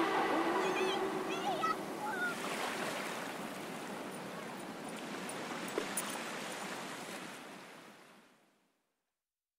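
The fading outro of an electronic background music track: an even noisy hiss with a few short sliding synth tones in the first two seconds, dying away to silence about 8.5 seconds in.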